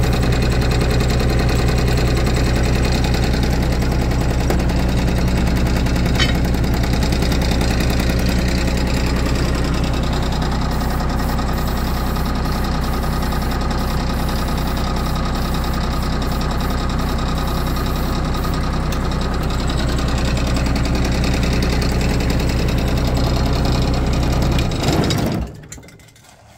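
Compact tractor engine idling steadily, then stopping near the end.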